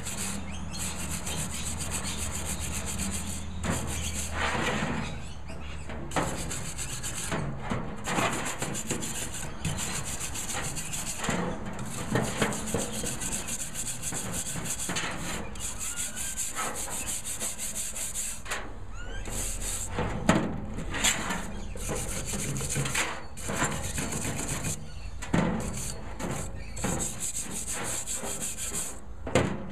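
Wire brush scrubbing a wet cast iron barbecue burner: steady scraping strokes with brief pauses. It is scrubbing off rust loosened by a soak in molasses and water.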